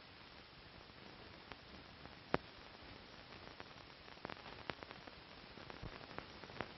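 Steady hiss of an old film soundtrack with scattered faint clicks and crackles, the sharpest a little over two seconds in.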